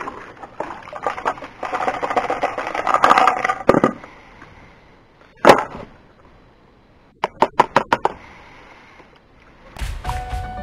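Muddy water sloshing and splashing as a plastic gold pan is swished through a basin. Then one loud knock, and a little later a quick run of about five sharp taps as a plastic tub of sand is turned over and rapped on the pan to empty it. Background music starts near the end.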